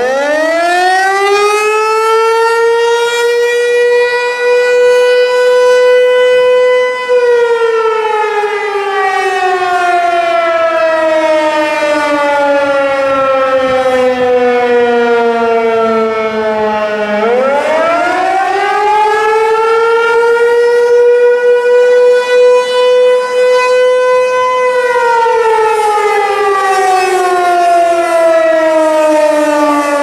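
American Signal T-128 electromechanical tornado siren sounding a short attack/fire signal. Its single tone winds up to a steady high pitch, holds briefly, then winds down slowly; about halfway through it winds up again and starts a second fall. Its rotating horn sweeps around, so the loudness swells and dips.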